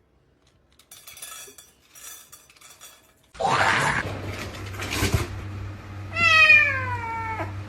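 A cat's single long meow, falling in pitch, a little past the middle, over a steady low hum and background noise.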